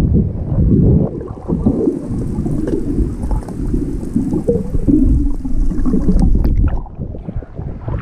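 Muffled underwater sound picked up through a waterproof action-camera housing: a dense, irregular low rumble of moving water with gurgles and small knocks. It drops off somewhat near the end as the camera comes up to the surface.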